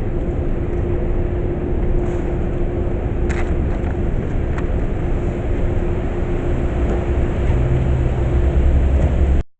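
City background in an alley: a low, steady rumble of traffic with a steady machine hum and a few faint clicks, stopping abruptly near the end.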